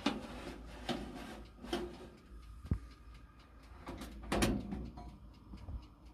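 A metal baking tray of potato wedges is slid into a small GoSystem portable gas oven with a few light clacks and scrapes. About four seconds in, the oven's hinged glass door swings shut with a louder clunk. A faint steady ticking runs underneath.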